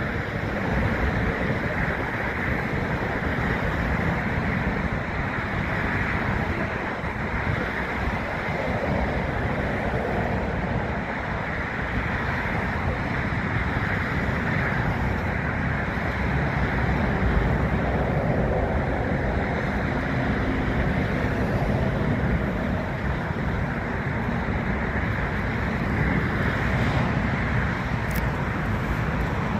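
Steady rumble of distant jet airliners taxiing, with wind buffeting the microphone.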